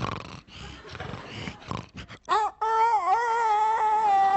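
A man making sound effects with his voice: breathy, noisy sounds, then from a little over two seconds in a long held high note that wavers slightly.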